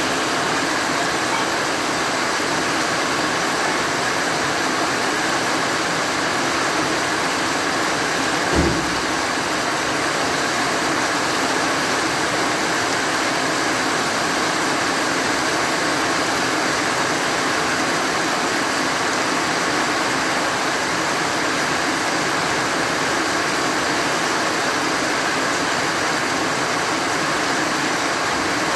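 Heavy rain falling steadily on grass and trees, an even, unbroken hiss. A brief dull thump sounds about nine seconds in.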